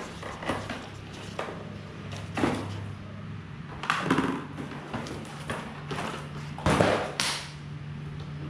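Handling noises from unboxing Nerf toy parts and packaging: scattered rustles, scrapes and light knocks, the loudest about two-thirds of the way in, over a steady low hum.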